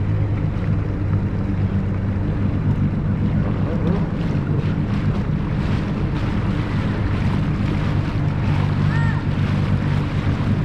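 Boat motor running steadily while underway, a low hum under the rush of water against the hull and wind buffeting the microphone.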